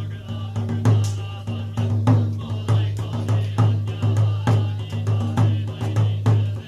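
Buddhist sutra chanting on a steady low monotone, kept in time by a wooden fish drum (mokugyo) struck about twice a second.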